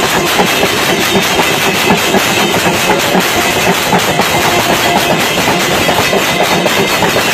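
Temple aarti din: a hand-held metal gong and bells beaten rapidly and without pause, a dense, steady clanging of several strokes a second.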